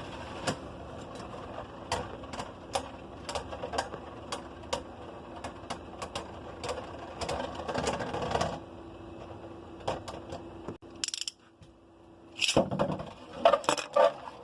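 Beyblade spinning tops whirring and clacking against each other in a plastic stadium, with rapid clicks over a steady hum. After a brief lull near the end come a few louder plastic clatters.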